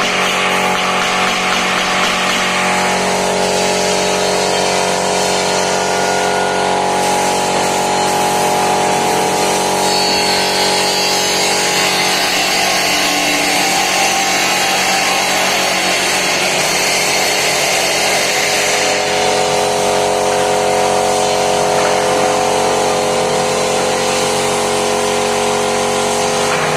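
Woodworking power tool running continuously, its motor tone holding steady while the higher cutting noise shifts a few times.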